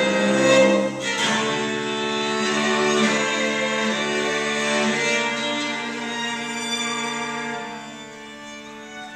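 Violin and cello playing a passacaglia together in long bowed notes. The music grows quieter and thinner near the end.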